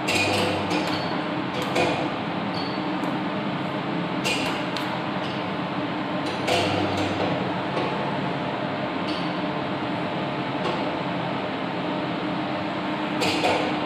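Steady hum and fan hiss from a running solar inverter, with a few short clicks as its front-panel buttons are pressed. The clearest clicks come near the start, about four and six and a half seconds in, and near the end.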